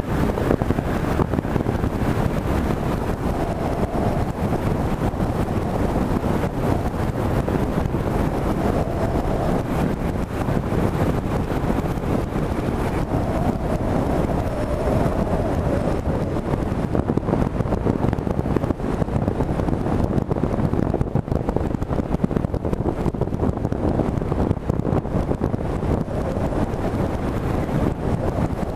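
Wind buffeting the microphone of a boat running at speed, over the steady drone of its outboard motor, whose faint tone wavers up and down now and then.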